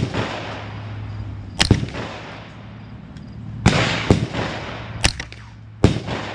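AR-15 rifle firing single shots, about five or six spaced irregularly a second or so apart, each followed by a rolling echo.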